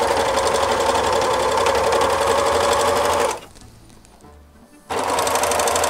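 Sewing machine stitching a seam in rib-knit fabric in two runs. It runs steadily for about three seconds, stops, and starts again about a second and a half later.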